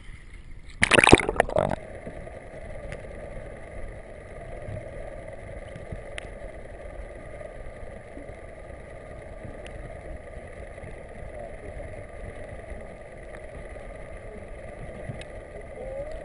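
A loud splash about a second in as the action camera plunges into the sea, then steady muffled underwater noise: a low hum with fainter steady tones and a few faint ticks, typical of an outboard boat's motor heard through the water.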